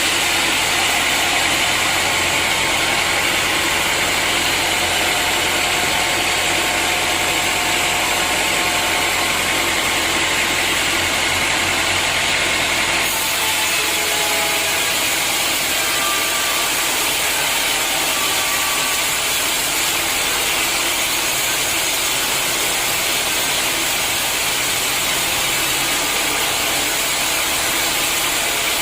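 Sawmill machinery running steadily, a dense mechanical noise with a grinding, ratcheting quality. Its tone shifts abruptly about halfway through.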